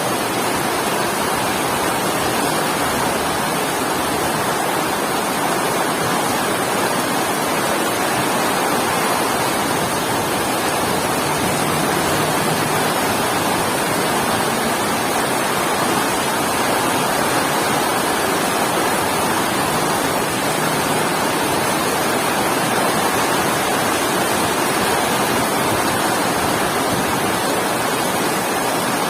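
Heavy rain falling steadily, a dense, even hiss with no distinct drops or thunder.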